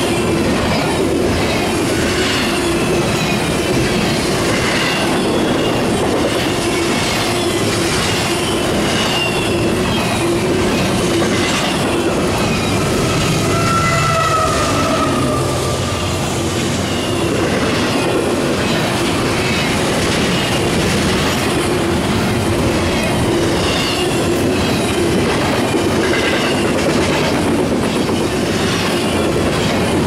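Double-stack intermodal well cars rolling past at speed: a steady loud rumble of steel wheels on rail with a regular clatter, and repeated short falling wheel squeals.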